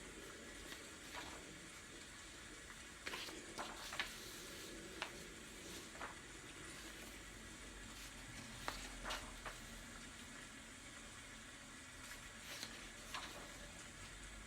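Faint rain ambience: a steady hiss with scattered light taps and clicks.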